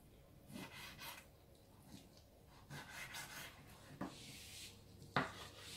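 Kitchen knife cutting raw fish on a wooden cutting board: a few soft scraping strokes and taps of the blade on the board, the sharpest knock about five seconds in.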